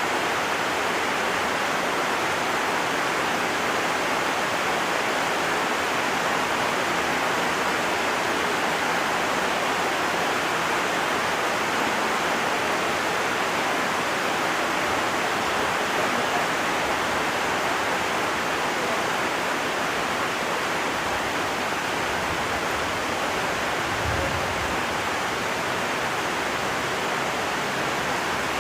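Heavy rain falling steadily: a dense, even hiss with no single drops standing out.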